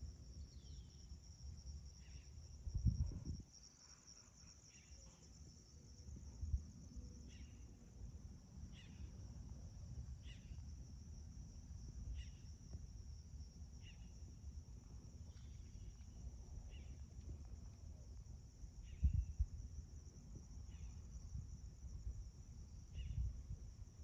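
Crickets chirring in a steady high drone, with a bird giving short chirps over and over, about one every second or so. A few low rumbles break through, the loudest about three seconds in and again near the end.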